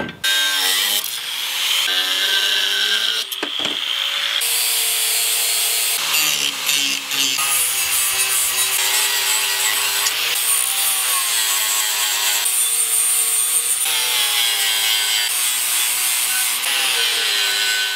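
Handheld angle grinder with an abrasive disc grinding a forged steel spear head clamped in a vise. There is a continuous harsh grinding hiss, and the motor's whine wavers as the disc bears on the steel. It breaks off and restarts several times, in separate passes.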